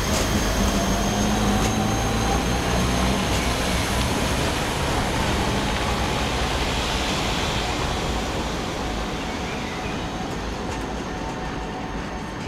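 Articulated electric trams running on curved street track as they climb a hill: wheels rolling on the rails with a thin, high squeal and a low motor hum. The sound fades gradually from about eight seconds in as the tram moves away.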